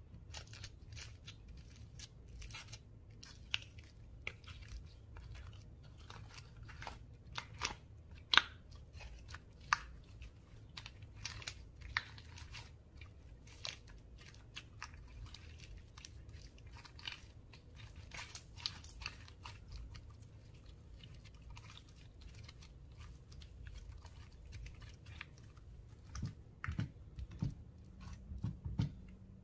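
Slime being squished and worked by hand: irregular wet crackling clicks and pops, several to a second. A few soft low thuds come near the end.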